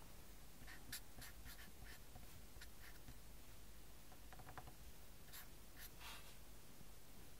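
Felt-tip marker writing on paper: faint short scratching strokes, in one run over the first few seconds and another from about four to six seconds in.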